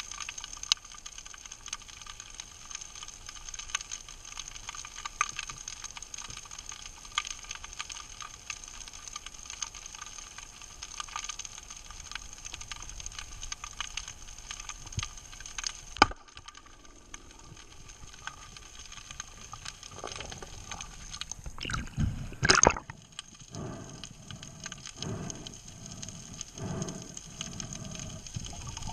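Underwater sound: a continuous faint crackling with scattered fine clicks and a sharp crack about sixteen seconds in, then louder swishing and a run of evenly spaced dull thuds near the end as the swimmer moves.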